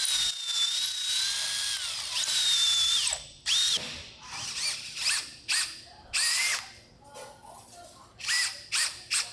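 Cordless drill boring into a wooden stern post. For about three seconds it runs continuously, its whine sagging and recovering in pitch as the bit loads up. Then come a string of short trigger bursts, each spinning up and stopping.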